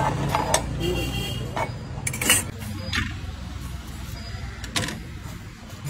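Scattered sharp clinks and knocks of steel kitchen utensils: a fork against a steel bowl and a knife striking a cutting board while chopping coriander. A low steady hum runs underneath.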